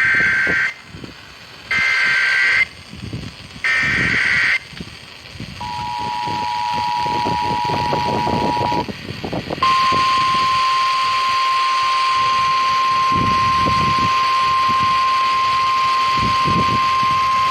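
Emergency Alert System broadcast alert tones: three short, harsh digital data bursts (the SAME header) about a second apart, then the two-tone attention signal for about three seconds, then a single slightly higher steady tone held for about nine seconds, announcing a severe thunderstorm warning.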